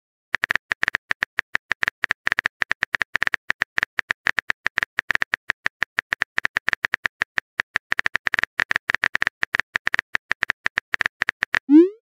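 Phone-keyboard typing sound effect from a texting-story app: a rapid, irregular run of light clicks, several a second.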